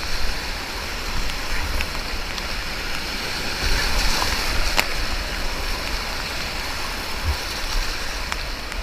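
Steady rush of whitewater rapids, swelling slightly about four seconds in, heard through an action camera's microphone.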